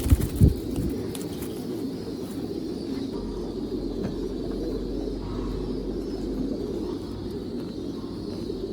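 A flock of pigeons cooing together, many overlapping coos forming one continuous sound, with a few low thumps in the first half-second.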